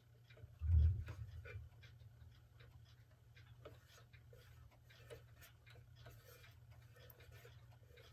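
Faint scattered small clicks and taps of metal parts being handled as a clock's minute hand is fitted onto its shaft. A single low thump comes about a second in, over a steady low hum.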